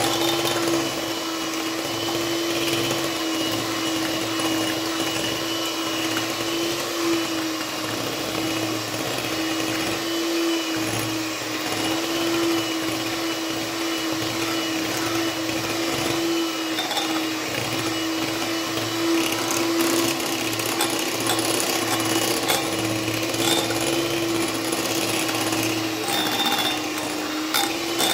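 Electric hand mixer running steadily with a constant whine, its beaters whipping cream in a ceramic bowl.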